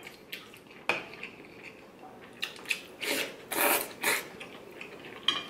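A person slurping ramen noodles and broth: several short, noisy slurps about three to four seconds in. A metal spoon clicks against the bowl, sharply once about a second in.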